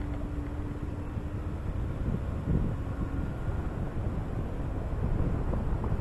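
Vehicle driving along a paved road: a low road and tyre rumble with wind rushing over an exposed microphone. A faint steady hum fades out in the first few seconds.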